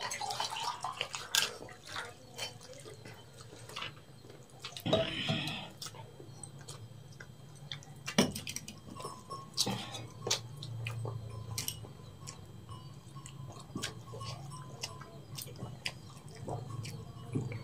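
A meal eaten by hand from steel plates: scattered light clicks and taps of fingers and food on the metal dishes, with water poured from a steel jug near the start.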